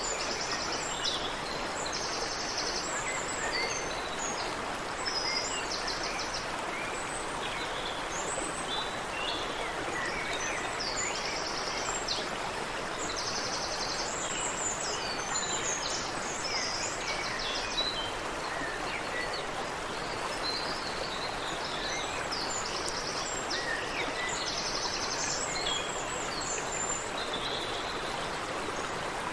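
Water running steadily in a creek, with several birds chirping and singing over it: short high trills and calls repeated throughout.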